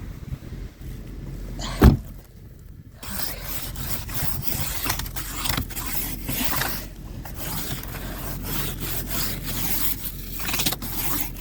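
Snow brush and scraper working over a car's iced-over snow in a run of repeated scraping strokes; the snow has crusted into ice. A single sharp thump about two seconds in.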